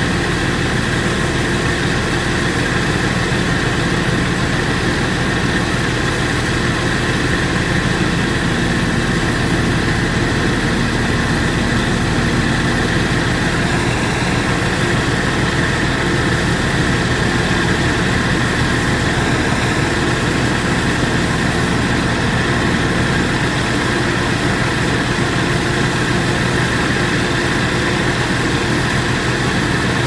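Rice combine harvester's engine running steadily at an even pitch, a constant drone with no change in speed.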